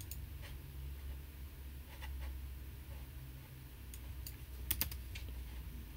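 Scattered computer keyboard keystrokes, a few taps at a time, over a low steady hum, with a louder pair of clicks just before five seconds in.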